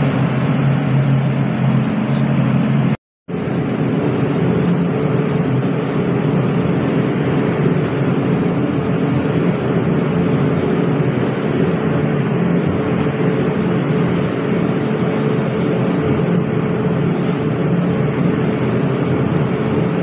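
Steady machine noise with a low hum, cut off completely for a moment about three seconds in.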